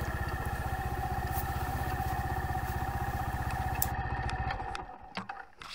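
Brixton Felsberg 125's air-cooled single-cylinder four-stroke engine idling with a steady, even beat. Near the end it turns muffled and fades out, followed by a couple of knocks.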